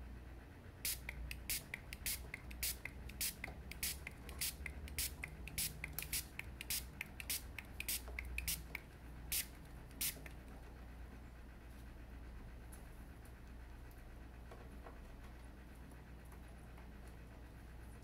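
Small hand-pump spray bottle squirting water in quick short hisses, about two a second, which stop after about ten seconds. A steady low hum runs underneath.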